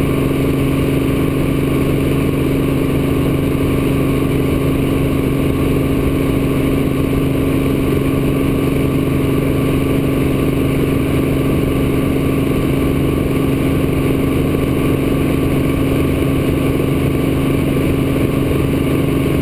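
Steady hum of a small camera drone's motors and propellers in level flight, a low whine holding one pitch and loudness throughout.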